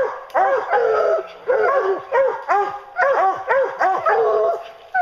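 A pack of bear hounds barking at the tree, short rising-and-falling barks from several dogs overlapping, several a second, with no let-up: the tree bark of hounds that have a black bear treed.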